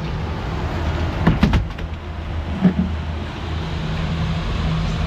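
Outboard motor running steadily with the boat underway, with wind and water noise, and a few knocks about a second and a half in.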